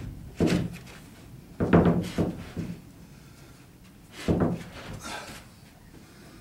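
Wooden knocks and thuds of a plywood sheet being shoved and worked into place on wooden floor joists: one knock about half a second in, a cluster of knocks around two seconds, and the hardest thud a little after four seconds.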